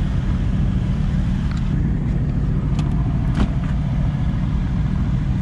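Mercedes-AMG GT S twin-turbo V8 idling steadily with a low, even rumble, with a few light clicks and knocks partway through.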